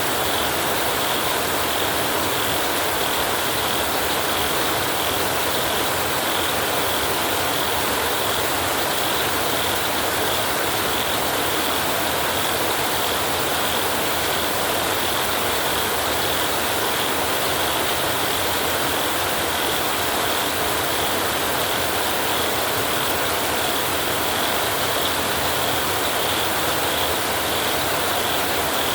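Heavy rain falling on a tin roof, a steady, unchanging hiss of countless drops.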